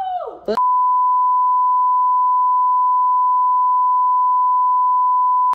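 A single steady, high-pitched censor bleep tone, starting abruptly about half a second in, holding at one pitch and level for about five seconds, then cutting off sharply into dead silence.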